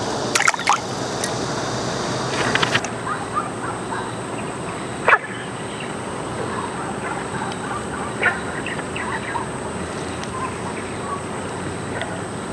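Pond-side outdoor ambience: scattered short bird calls over a steady background noise, with a few sharp handling clicks in the first three seconds and one short sharp sound about five seconds in.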